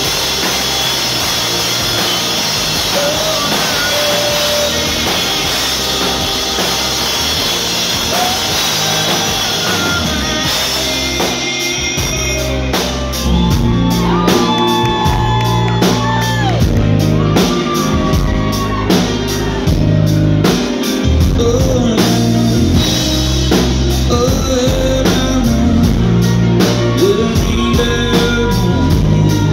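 Live band performing: a male lead singer over guitar, keyboard and drums. The full band comes in louder about thirteen seconds in.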